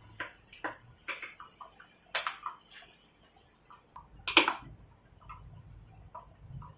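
Irregular clinks and knocks of metal hand tools and engine parts being handled, about a dozen short hits with the loudest about four seconds in.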